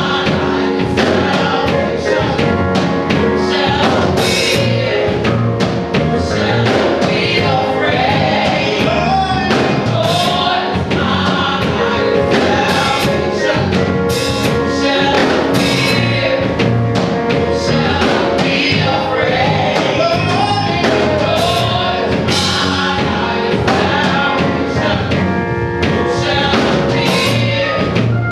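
Live gospel singing by a small group of women vocalists on microphones, backed by keyboard and drums, with steady drum and cymbal hits throughout.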